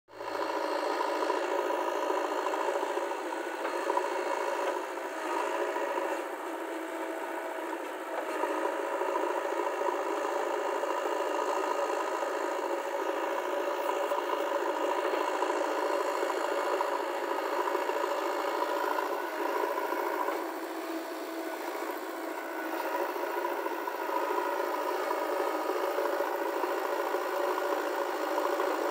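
Diesel engine of a JCB backhoe loader running steadily while it digs and loads soil, its level easing off and picking up a little as the work goes on.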